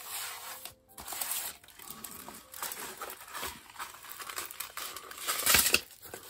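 Crinkling and rustling of a diamond painting canvas and its clear plastic protective film as it is slid out of its cardboard kit box and unrolled, in irregular bursts, loudest about five and a half seconds in.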